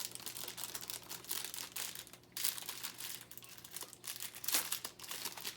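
Plastic packaging crinkling and crackling as it is handled and unwrapped, in irregular bursts, with one louder crackle about four and a half seconds in.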